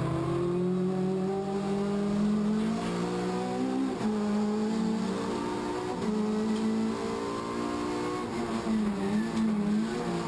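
Race car engine heard from inside its stripped cabin under hard acceleration, the note climbing and breaking off at gear changes about four and six seconds in, then wavering near the end as the revs rise and fall.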